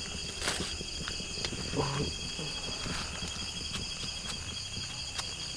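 Steady chirring of night insects, with scattered sharp clicks and crackles from the papery comb of a hornet nest being cut with a knife and handled.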